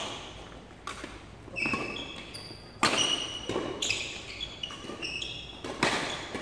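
Badminton rally: sharp cracks of rackets striking the shuttlecock, four times, ringing briefly in the hall, with sneakers squeaking on the court floor between the hits.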